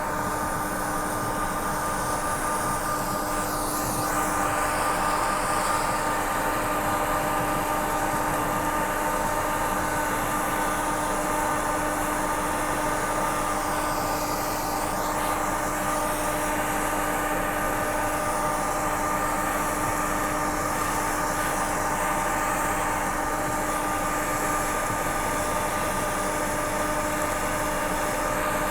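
John Deere combine harvester running steadily while harvesting oilseed rape: a constant mechanical hum with several steady tones over a broad whirr.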